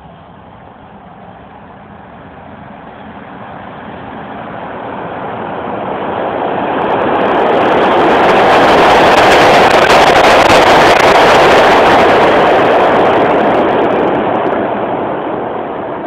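A subway train coming through the tunnel and into the station: its rumble and wheel noise build steadily for about eight seconds, are loudest around the middle with a high hiss on top, then die away.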